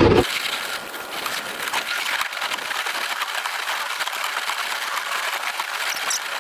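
Thin lake ice crackling and breaking up as a small boat is pushed through it: a dense, light crackle of many tiny cracks with no deep sound under it.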